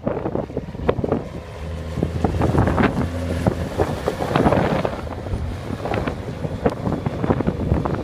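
Strong wind gusting on the microphone over the steady low drone of a Case IH Puma 210 tractor's diesel engine as it plows through snow; the engine hum is clearest a couple of seconds in.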